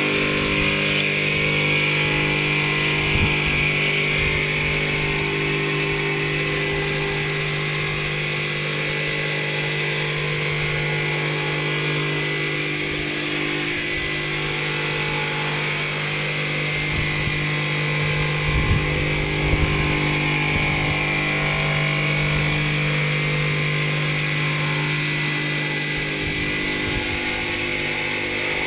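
Computer-controlled single-needle frame quilting machine running, its sewing head stitching a quilt as the head travels across the frame: a steady machine hum with a higher whine over it.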